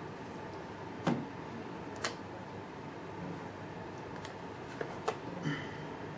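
Steady hiss with a few sharp clicks and knocks as an aluminium carrying case is handled on a felt table and its catch is clicked open. The loudest knock comes about a second in, and a small cluster of clicks near the end.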